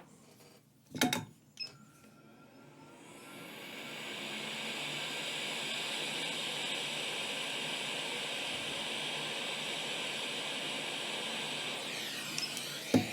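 A click, then a small electric blower's fan spins up over a couple of seconds, runs with a steady airy hiss, and winds down near the end with a falling pitch.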